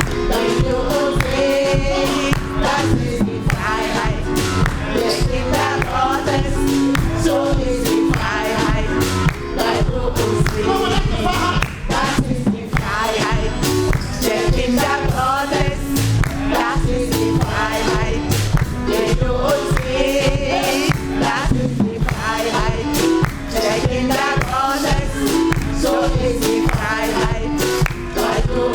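Live gospel music: a choir singing over a band with a steady drum beat and bass.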